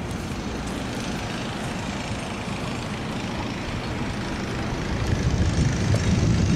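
Wind rushing across the microphone on a boat under way, a steady noise that turns louder and gustier in the last second or two.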